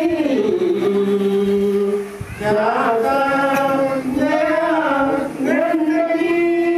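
Male voices chanting a devotional verse on long, steadily held notes, pausing briefly about two seconds in and again about five seconds in.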